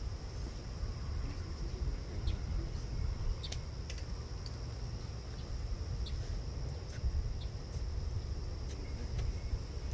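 A steady high-pitched insect chorus, typical of crickets, runs throughout over a low rumble, with a few faint scattered clicks.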